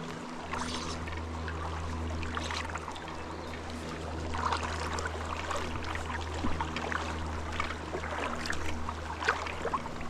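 Creek water trickling and splashing, with scattered small splashes, over a steady low hum.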